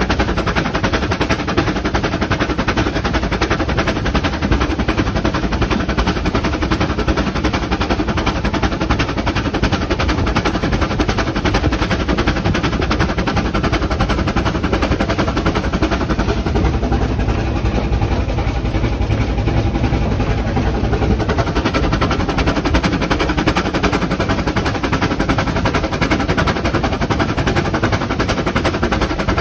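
Vale of Rheidol Railway narrow-gauge steam tank locomotive running along the line, heard from its footplate: a loud, steady, fast rattle and clatter with no let-up.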